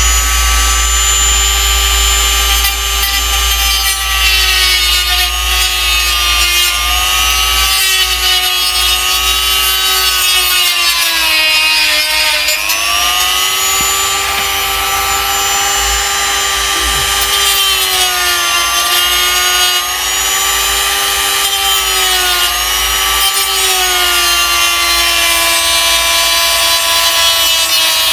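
Ryu RDG 3.2 mini die grinder (rotary tool) running continuously, its bit grinding plastic to tidy up a melted soldering mark. The motor's high whine sags in pitch several times as the bit is pressed into the work, most deeply about twelve seconds in, then recovers.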